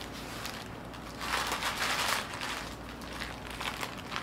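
Paper packaging rustling and crinkling as it is handled, with the loudest burst of rustling about a second in, lasting about a second, then lighter crackles.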